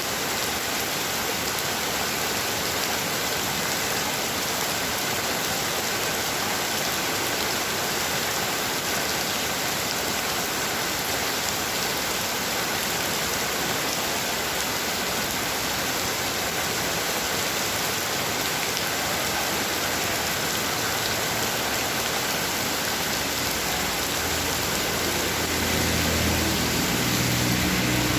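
Heavy rain falling steadily as a dense, even hiss. Near the end a low rumble comes in underneath it.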